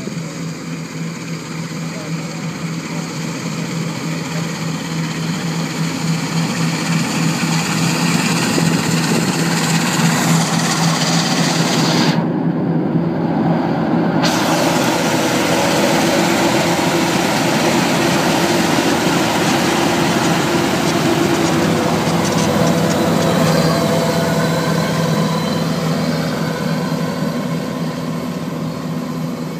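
Kubota DC93 rice combine harvester running steadily under load while cutting and threshing: its 93 hp four-cylinder turbo diesel with a steady low hum over the noise of the threshing machinery and crawler tracks. It grows louder over the first several seconds as it comes close, sounds muffled for a couple of seconds near the middle, and eases slightly near the end.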